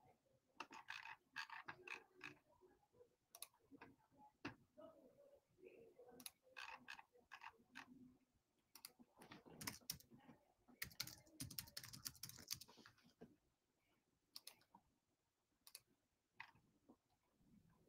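Faint, irregular typing and clicking on a computer keyboard, with a brief rustle about eleven seconds in.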